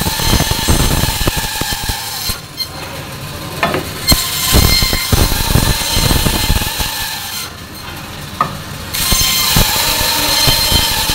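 Meat band saw cutting through frozen salmon steaks: a high-pitched hissing whine while the blade is in the fish, three cuts in all, with the saw running more quietly between them.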